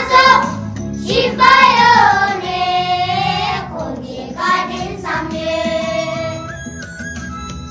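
A child's voice singing a Tibetan song over instrumental backing music, with a long held, wavering note in the middle. The voice stops about five seconds in and the accompaniment carries on alone.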